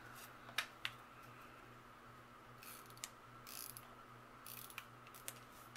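Correction tape dispenser rolled across notebook paper in a few short scratchy strokes, with light clicks as the pen is set down and the dispenser handled.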